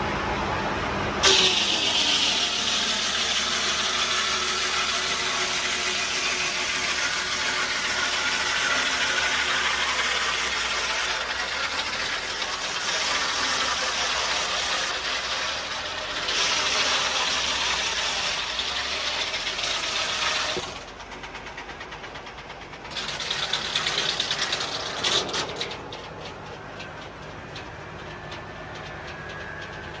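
Foley Belsaw circular sawmill blade cutting through a dried oak log, with the Ford 4000 tractor that drives it running under load. The blade bites in suddenly about a second in and cuts for about twenty seconds, drops off, cuts loudly again for a couple of seconds, then runs free with a light rattling near the end.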